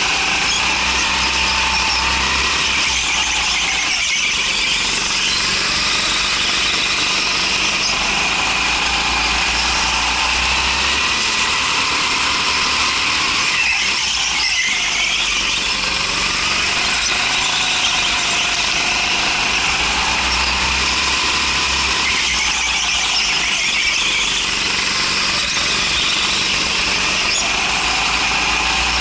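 Rental go-kart engine running at speed, its note rising and falling as the kart brakes and accelerates through the corners, with tyres squealing on the smooth concrete track.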